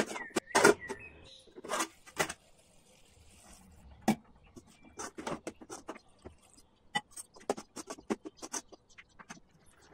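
A white plastic spatula scraping and knocking against an aluminium kadai as a wet vegetable curry is stirred: a run of irregular sharp clicks and scrapes.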